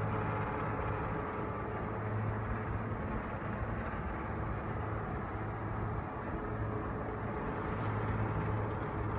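Waste-processing machine running steadily: a constant low hum over a dense mechanical rumble.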